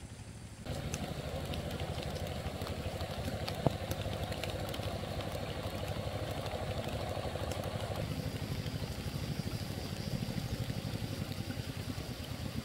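Small engine of a two-wheel walking tractor running steadily with a fast, even chug, starting abruptly about a second in. A single sharp click is heard a few seconds later.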